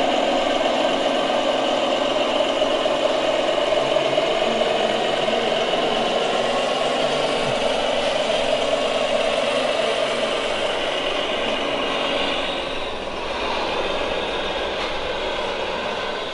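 ScaleART MAN 6x6 radio-controlled dump truck driving up a dirt slope, its drivetrain running steadily with a rattle, then easing off about ten seconds in.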